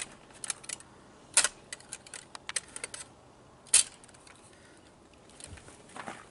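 Loose metal armour plates from a coat of plates clinking and clacking as they are picked up and laid out by hand. A string of light clicks, with sharper clacks about a second and a half in and again near four seconds.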